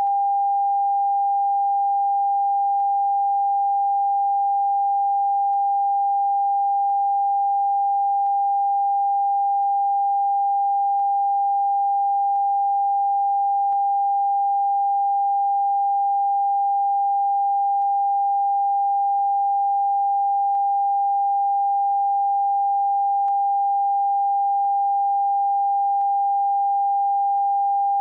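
Steady TV test-card tone: one unbroken pure beep held at a constant pitch and level, the sound a station sends out with its test card at the end of broadcasting.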